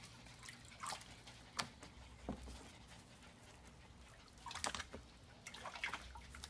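Faint splashing of water in a shallow plastic tub as a Coton de Tulear moves about in it: a handful of short splashes.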